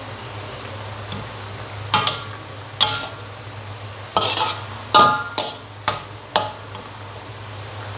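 Metal spatula stirring a watery taro stew in a metal wok, knocking and scraping against the pan about seven times with a short ring after each clank. The clanks start about two seconds in and stop about a second and a half before the end, over a steady low hum.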